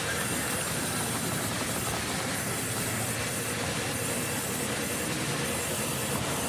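Band resaw running with a steady hissing noise as a wooden board is fed through the blade and sawn lengthwise.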